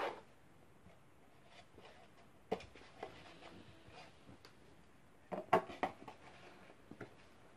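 Peat substrate being scooped and pressed into a small plastic box by gloved hands: faint rustling with a few sharp plastic clacks and knocks, the loudest a short cluster about five and a half seconds in.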